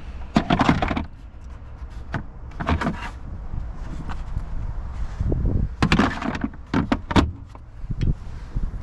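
Parts being fitted back into a car boot around the spare wheel well: several short bursts of clattering and knocking as pieces are set and pushed into place.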